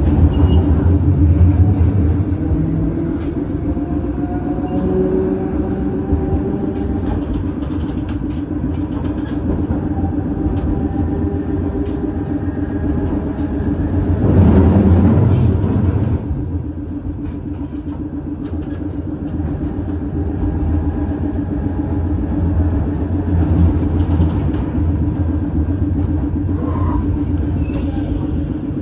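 St. Charles Line streetcar running along its track, heard from on board: a steady rumble of wheels on rail with the electric motor whining, rising in pitch several times early on. The rumble swells louder for a couple of seconds about halfway through.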